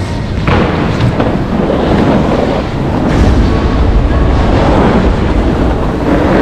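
Wind rushing over a moving camera's microphone, mixed with snowboards scraping and sliding across packed indoor snow, with a louder surge about half a second in.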